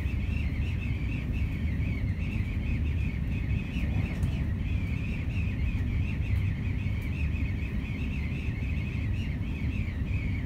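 Wind singing around a moving train: a high, wavering whistle that runs on without a break, over the low rumble of the train running.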